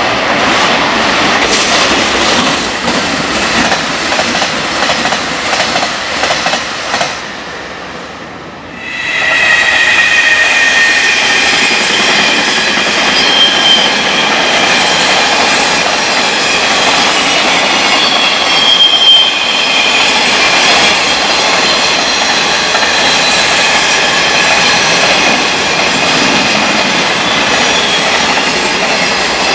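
A long container freight train passing close by, its wheels clacking over the rail joints, with a high steady squeal from the wheels. It runs loud after a brief drop about eight seconds in. Before the drop, a train runs past on the tracks.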